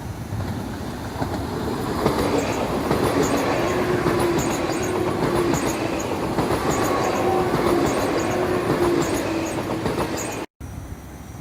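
A train passing close by, building over the first couple of seconds, with wheels clattering over the rails and a steady tone running underneath. The sound breaks off abruptly near the end and returns quieter.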